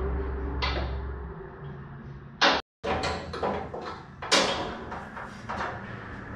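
Scattered knocks and clanks from hands working on a truck's rear axle, loudest about two and a half and four and a half seconds in. A low hum underneath stops about a second and a half in.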